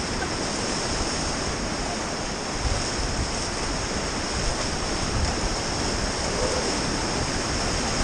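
Whitewater rapids rushing around an inflatable river raft as it runs through them: a steady, dense roar of water.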